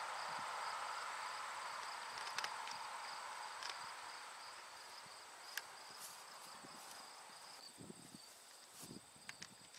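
Faint outdoor summer ambience of insects chirring steadily in high, finely pulsing tones, with a soft hiss that fades away over the first several seconds. A few small scattered clicks are heard.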